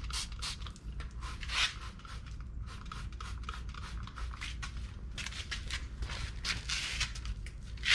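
Wet sanding of a plastic headlight lens by hand with a 3000-grit sanding disc on a surface prep pad: quick, irregular rubbing strokes.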